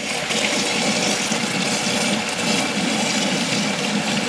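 Steady rush of running water, cutting in abruptly at the start.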